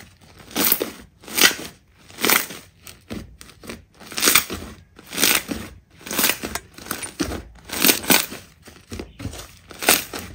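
Slime being pressed and squished, a noisy squish about once a second with smaller ones in between.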